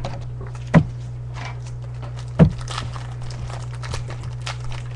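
Two dull thumps, about a second and a half apart, among light clicks and rustles of trading cards and packs being handled on a desk. Under them runs a steady low electrical hum from the webcam microphone.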